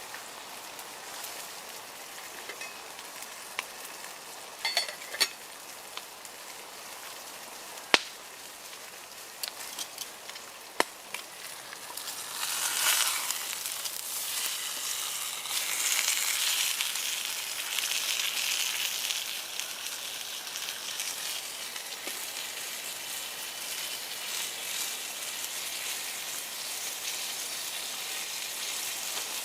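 Steak sizzling in a mess-kit pan over a campfire: a steady frying hiss with a few sharp clicks and knocks in the first half. About twelve seconds in the sizzle swells louder, then settles back to a steady fry.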